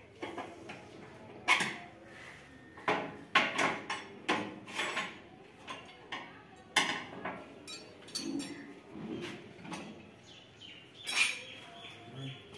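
Hand tools clinking and knocking on the steel battery box and guard plate of a combine harvester as its batteries are being unbolted: a run of sharp metallic clinks, thickest in the first seven seconds, with one more near the end.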